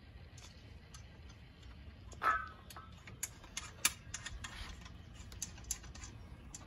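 Light metallic clicks and taps of an outboard lower unit and its bolts being handled as the gearcase is fitted up into the midsection, with one louder clink about two seconds in and a run of quick clicks after it.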